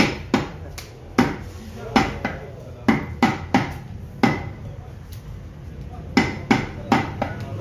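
Meat cleaver chopping beef on a wooden log chopping block: a run of sharp chops, often two or three in quick succession, with a pause of about two seconds past the middle.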